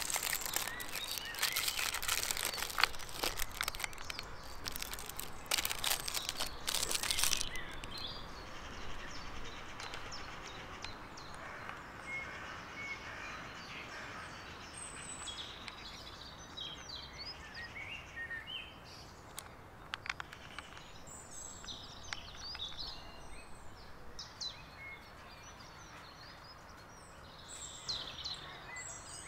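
Packaging crinkling and tearing for the first seven seconds or so as a chocolate pack is opened. Then birds chirp now and then over quiet outdoor background.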